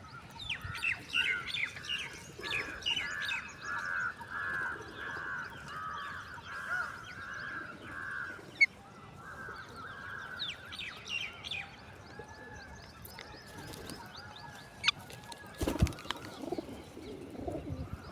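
Parrot calling: a run of short, repeated arched calls about two a second with higher chirps over them, easing into fainter calls. A couple of sharp clicks and a knock come in the second half.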